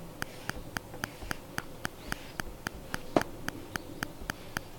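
Steady, regular ticking, about four ticks a second, with one louder click about three seconds in.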